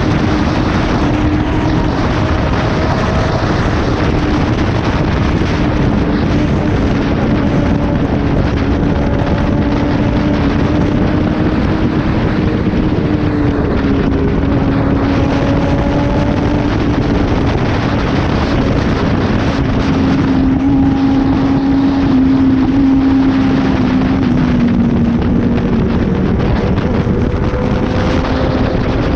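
Kawasaki ZX-10R inline-four superbike with an SC-Project exhaust, cruising at a steady pace with its engine note drifting slowly lower, and wind rushing over the microphone.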